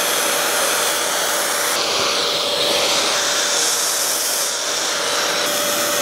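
Vacuum cleaner running steadily with a faint whine, its nozzle sucking dust out of the inside of an opened laptop; the hiss of the airflow shifts in the middle as the nozzle moves.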